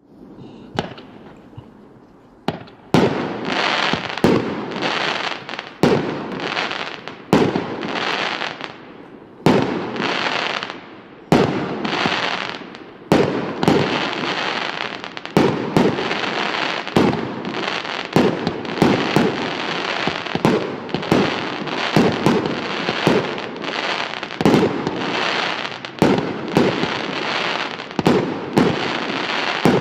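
FIREevent 'CB Reaction' 36-shot firework battery (cake) firing. A couple of faint pops open it, then shot after shot about once a second, each a sharp bang that trails off into a hiss as the stars burst.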